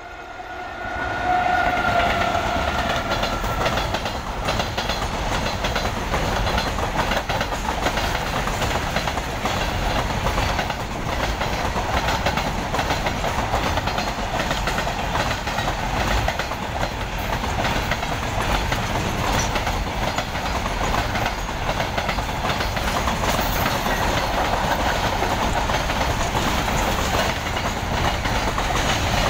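Electric locomotive's horn sounding for the first few seconds as it draws level, then a long freight train of covered wagons rolling past close by with a steady rumble and wheel clatter over the rail joints.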